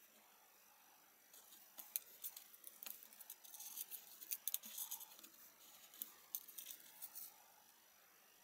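Faint scattered ticks and clicks of hand work: braided thread, a fine wire threader and small brass crimps being fiddled at a metal screw eye. The clicks start about two seconds in and stop about seven seconds in.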